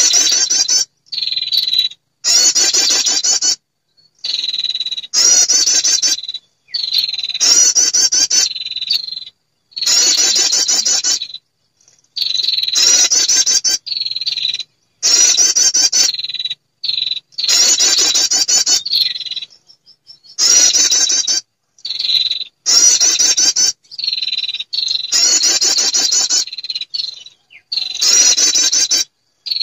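Bird-lure recording of a female perenjak, a small songbird, calling to draw males: loud, rapid high trills in bursts of about a second, repeated roughly every two seconds with abrupt starts and stops.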